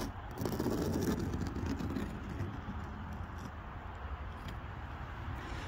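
Fingertip sweeping through a thin layer of fresh snow on a car's body panel, a soft brushing strongest in the first second and a half, over a steady low outdoor rumble.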